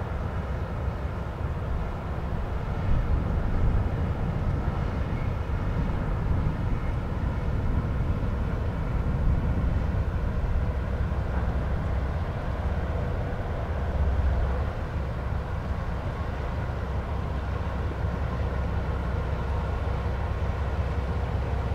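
Steady low rumble with a faint, steady mechanical hum above it.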